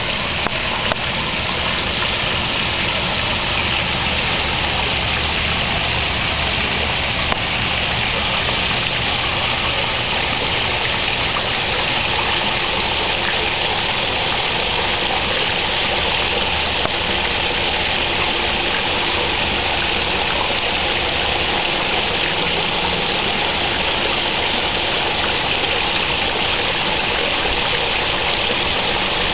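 Water running and splashing steadily in a garden pond, with a low steady hum underneath.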